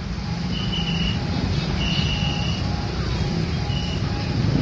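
Bus running, a steady low rumble of engine and road noise, with a few short high beeps now and then.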